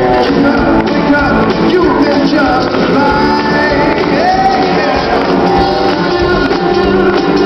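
Live band playing: strummed acoustic guitars, fiddle and drums, with a voice singing over them through the PA.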